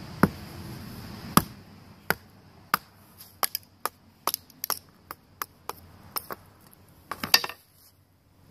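Sharp knocks and taps at an irregular pace: two loud ones in the first second and a half, then lighter taps about two a second, with a quick flurry near the end.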